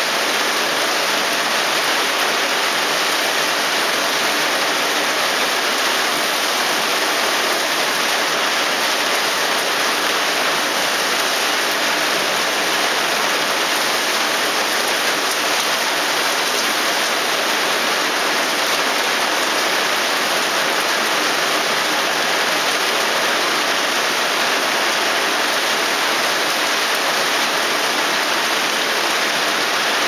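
Heavy typhoon downpour: a loud, steady, even hiss of rain pelting onto shrub leaves and the ground.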